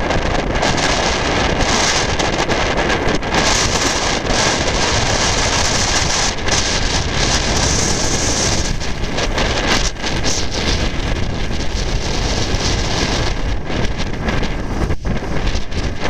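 Strong snowstorm wind blowing steadily and loudly across the microphone.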